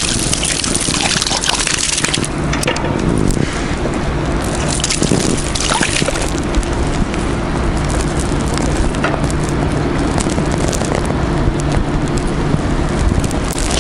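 A hooked trout splashing and thrashing at the water's surface close in to the bank as it is played in on a spinning rod, with a run of splashes one after another.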